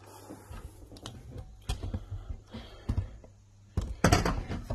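Irregular clicks, taps and rustling of hands handling plastic wiring connectors and a test light around an engine bay, loudest in a cluster about four seconds in, over a steady low hum.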